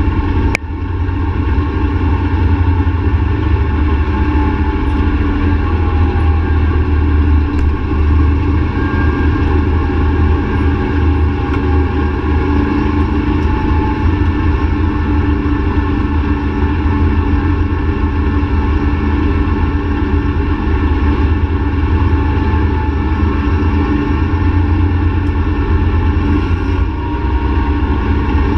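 ATV engine running steadily at cruising speed, a continuous low drone with steady pitched lines above it. There is a single sharp click about half a second in.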